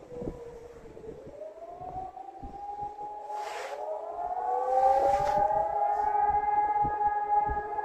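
Civil defense sirens sounding in a monthly test. One tone falls away at the start, then several sirens wind up one after another, rising in pitch and growing louder, and settle into steady overlapping tones. Two brief rushing noises come around the middle.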